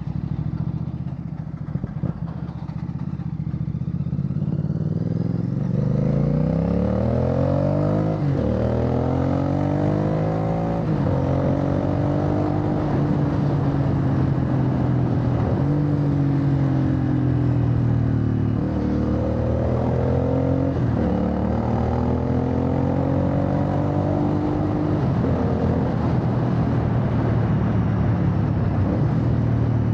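Royal Enfield Bear 650's 648 cc parallel-twin running through a Red Rooster Performance aftermarket exhaust while riding. After a few seconds at low revs it accelerates, the engine note rising in several pulls, each broken by a quick dip at an upshift, then settles into a steady cruise near the end.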